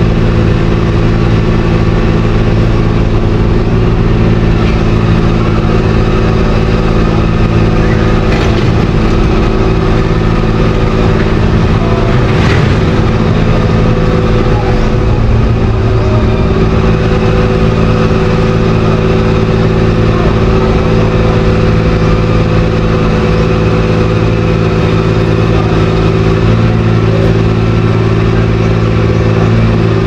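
An engine running steadily at constant speed: a continuous hum made of several steady tones, with no change in pitch or level.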